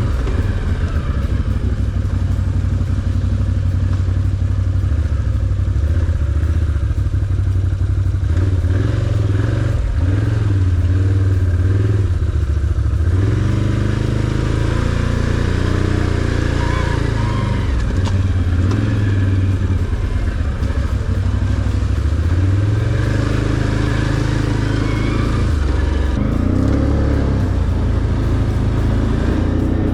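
Can-Am ATV engine running under way, its pitch rising and falling repeatedly as the throttle opens and eases off.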